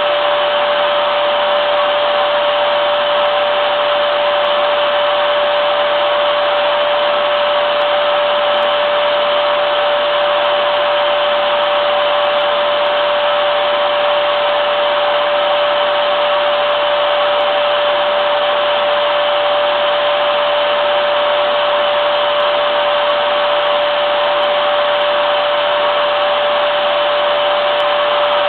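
Vacuum cleaner running continuously, a steady motor whine with one strong high-ish tone over an even rush of air, unchanging in pitch and level.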